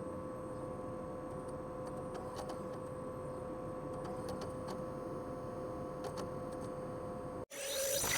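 Desktop computer running: a steady whir and hum with a few faint clicks scattered through it. It cuts off abruptly near the end, and a different, louder sound begins.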